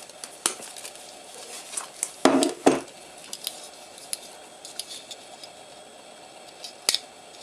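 Handling and opening of a cardboard shipping package by hand: scattered light clicks and scrapes, two louder knocks about two and a half seconds in, and a sharp click near the end.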